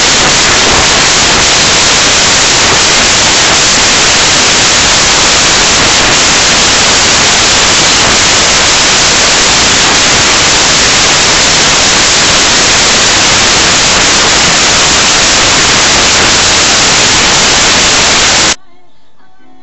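Loud, steady static hiss on the soundtrack, even at all pitches with no tone or rhythm in it, cutting off abruptly about a second before the end.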